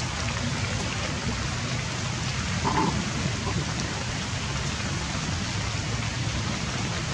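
Steady rain falling, with one short high squeak about three seconds in.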